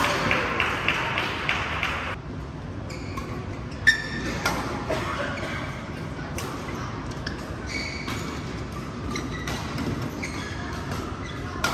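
Badminton rally: rackets striking the shuttlecock back and forth in sharp pings, with court shoes squeaking on the floor. The loudest hit comes about four seconds in.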